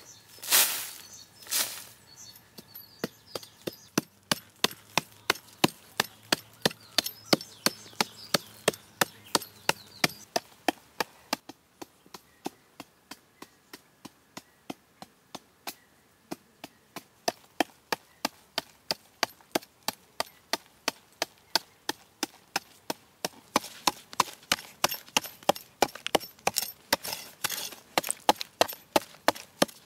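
A narrow hand digging blade chopping into hard, packed earth in quick, steady strokes, about two to three a second, with a few heavier strikes near the start.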